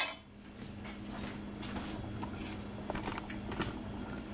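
A metal spoon is set down with a single sharp clink against a cast-iron skillet. Then curry sauce sizzles and crackles faintly in the hot pan.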